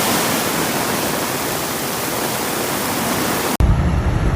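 Loud, steady rush of floodwater: a dense, even hiss with little low rumble, cut off abruptly about three and a half seconds in and replaced by a lower rumbling sound.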